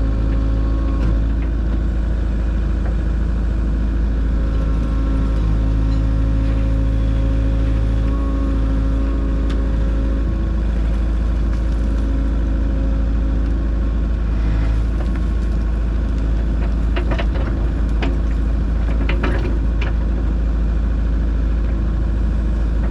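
Kubota KX057-4 mini excavator's diesel engine running steadily as it digs, with a few short knocks and scrapes from the bucket in the later part.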